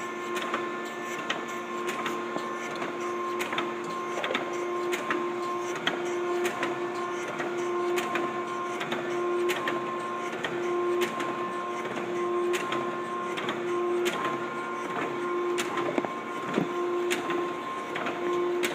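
Okamoto 12x24 surface grinder running, its spindle turning smoothly and sounding good. A steady machine hum with a tone that pulses about once a second, and many small sharp ticks throughout.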